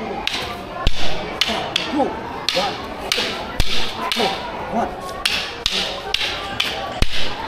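Arnis sticks clacking together in a two-person stick-fighting drill: an irregular series of sharp knocks, sometimes several a second.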